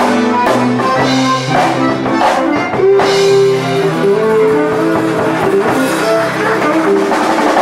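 Live Cajun dance band playing: a Cajun button accordion carries the tune over strummed guitar and a steady beat.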